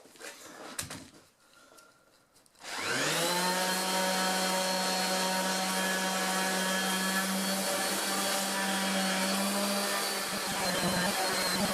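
Light handling clicks, then an electric power tool's motor starts about three seconds in, its whine rising as it spins up to speed and then running steadily. About ten seconds in the sound turns rougher, as if the tool is put to work.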